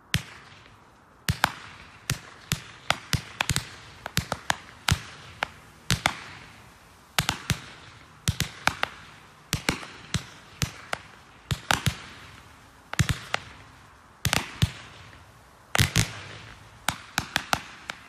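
Fireworks exploding: an irregular run of sharp bangs, about two a second, each with an echoing tail, with some quick clusters of three or four bangs.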